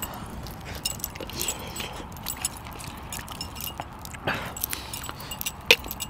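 Scattered light clinks and jingles of chunky metal bracelets and rings knocking together and against a steel plate while a man eats rice and fish by hand, over a faint background hiss.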